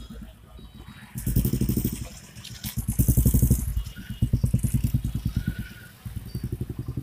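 A motorcycle engine running close by, with a rapid even pulse that swells louder and fades back several times from about a second in.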